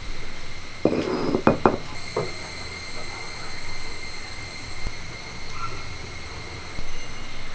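Hands scraping and gathering crushed peanuts on a stone grinding slab. There is a short gritty rustle with a few knocks about a second in, over a steady high-pitched drone.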